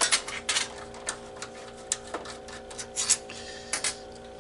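Irregular sharp clicks, taps and short scrapes of a screwdriver and plastic console parts being handled, about a dozen in a few seconds, over a faint steady hum.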